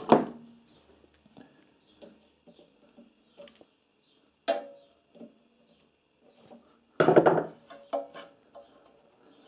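Metal tool handling: pliers clattering and clicking as they are picked up and worked on the engine's oil filler cap to loosen it. There is a sharp clatter at the start, another about four and a half seconds in, and the loudest clatter about seven seconds in, with small clicks between.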